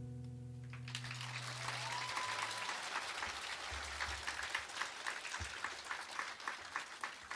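The song's final chord rings out and fades over the first two seconds while the audience starts applauding about a second in. The clapping goes on and thins toward the end into separate claps, with one short whistle from the crowd about two seconds in.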